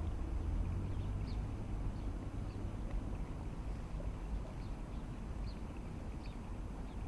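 Outdoor ambience: a steady low rumble with faint, short bird chirps every second or so.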